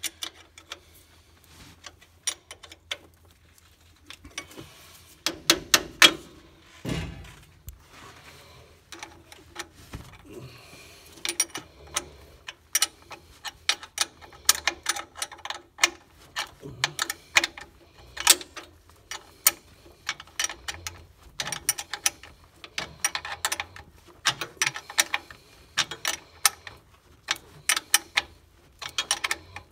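Irregular metallic clicks and taps from a hand wrench tightening the cable clamp on a 6-volt battery terminal, some in quick runs, with a single low sliding sound about seven seconds in.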